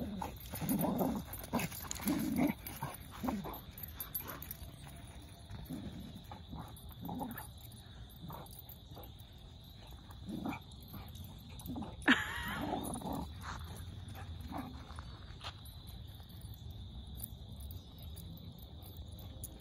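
Dog growling and grunting in play, in short bursts that come quickly at first and more sparsely later, with a sharp click and a louder burst about twelve seconds in.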